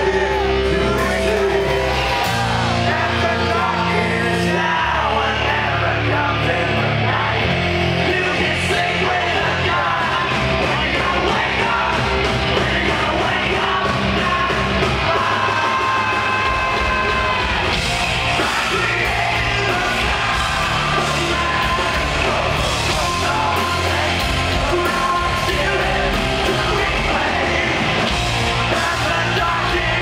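A hard rock band playing live at full volume, with the singer yelling and singing over guitars and drums, heard from within the crowd.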